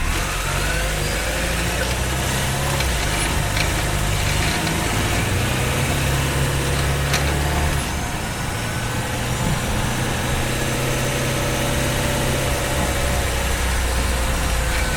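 Honda Freed Hybrid's 1.5-litre four-cylinder petrol engine running steadily under the bonnet while the car drives, heard from the engine bay. It cuts in right at the start, over the thin whine of the hybrid's electric drive, which slowly rises and falls in pitch.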